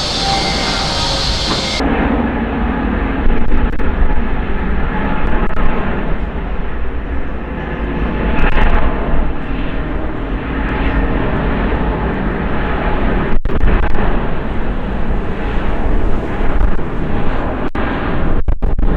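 Jet airliner engines at takeoff thrust: a loud, steady rumbling roar. The highest frequencies drop away abruptly about two seconds in.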